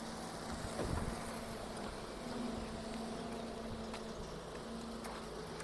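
Hydraulic excavator's diesel engine running at a distance as it digs sand by the river, a steady low drone.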